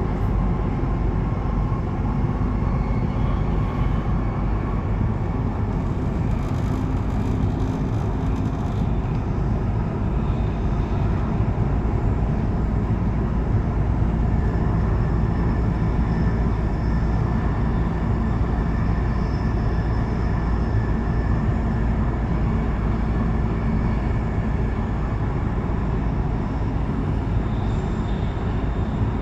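Nuremberg U-Bahn DT3 train running through a tunnel, heard from inside: a steady, loud rumble of wheels on rails. A faint high steady tone sits above it from about halfway on.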